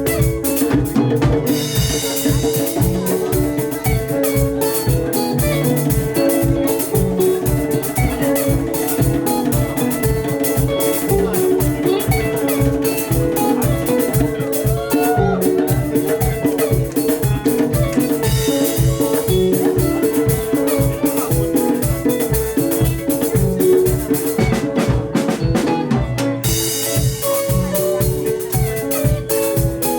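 Live band playing an instrumental passage of East African Swahili rumba: a drum kit keeps a steady fast beat under bass and interlocking, repeating guitar lines.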